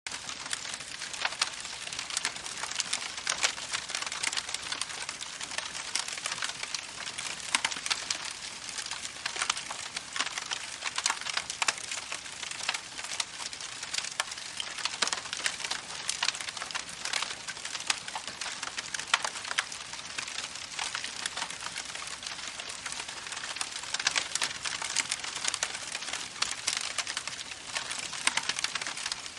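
Campfire crackling: a steady hiss with dense, irregular pops and snaps.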